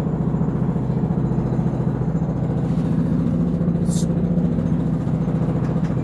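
Construction jackhammering, a steady low rumble with a fast even pulse that swells a little in the middle. A short high click about four seconds in.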